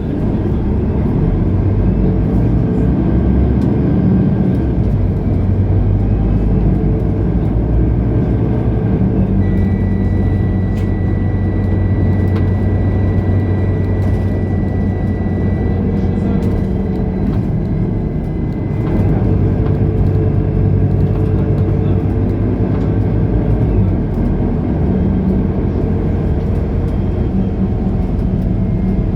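Mercedes-Benz O530 Citaro Facelift Ü city bus running, its diesel engine note steady for a while and shifting in pitch about two-thirds of the way through. A thin steady high whine sounds over it through the middle stretch.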